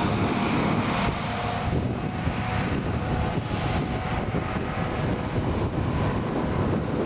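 Heavy diesel farm machinery running steadily, with wind buffeting the microphone.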